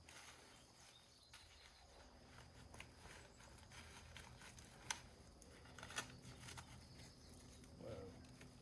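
Near silence, with two faint, brief clicks about five and six seconds in.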